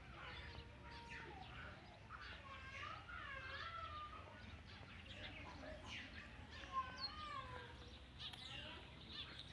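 Faint, high chirping animal calls, many short notes bending up and down in pitch, over a low steady hum.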